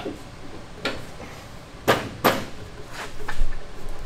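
A few sharp knocks and clanks from the bent handlebars of a mini bike being worked straight by hand. The two loudest come close together about two seconds in, followed by a duller low thud.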